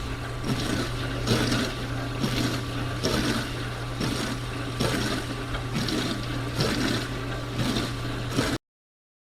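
Dishwasher running: a steady motor hum under rhythmic swishes of water spraying inside the tub, about one every second, and it cuts off suddenly near the end.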